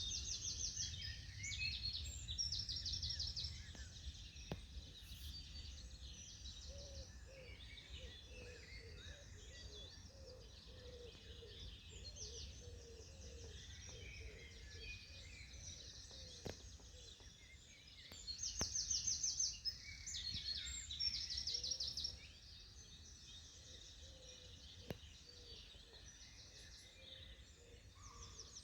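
Several songbirds singing in a morning chorus, one repeating a fast, high trill every few seconds, loudest near the start and again past the middle, over a steady low rumble.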